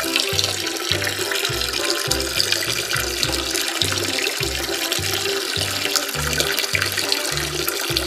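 Background music with a steady, bouncing bass line, over a continuous bright rushing hiss like running water.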